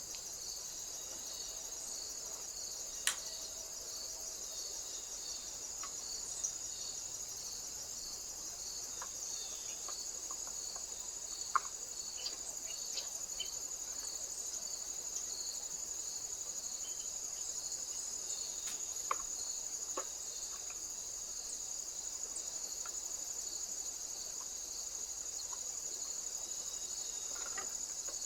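Crickets chirping steadily in a high, continuous trill, with a pulsing chirp beneath it. A few faint clicks and taps are scattered through it.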